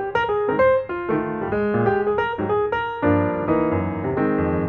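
Background music led by a bright keyboard or piano melody, with bass notes filling in after about a second and the sound growing fuller near the end.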